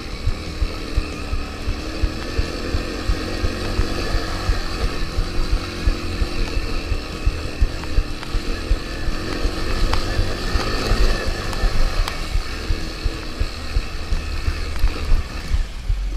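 Small single-cylinder engine of a three-wheeled ATC running on a trail ride, its pitch rising and falling as the throttle is worked, with wind rumbling on the microphone.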